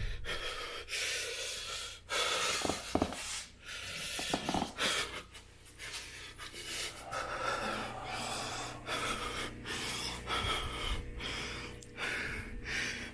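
A man breathing hard close to the microphone, in quick heavy breaths about one a second.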